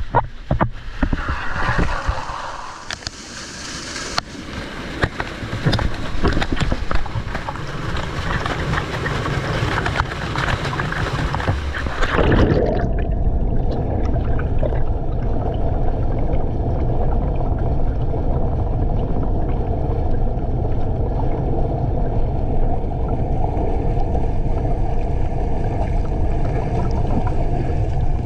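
Water splashing and rushing close to the microphone, then about twelve seconds in the sound turns suddenly into a dull, muffled low rumble, as when the microphone goes underwater.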